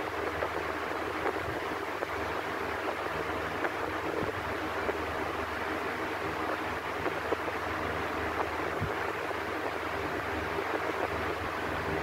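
Electric fan running steadily: an even rush of air with a faint low motor hum underneath.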